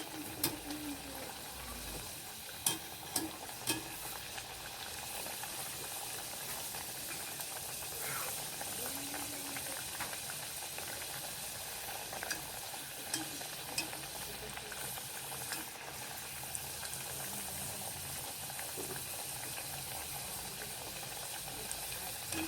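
Breaded potato mojos sizzling steadily in hot frying oil in a pan, on their first fry, with a few sharp clicks in the first few seconds and scattered small pops.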